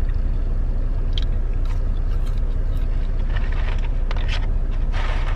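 Steady low engine hum of a truck heard inside the cab, with a few brief soft rustles or clicks from small movements near the end.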